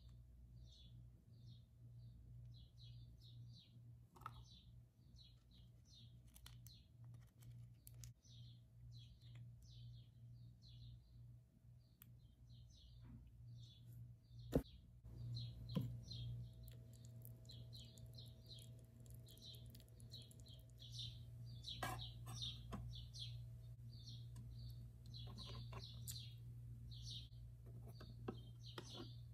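A small bird chirping over and over, about two chirps a second, over a faint steady low hum. A few sharp clicks and rustles come from handling the tiny noodle packet and miniature cookware, the loudest about halfway through.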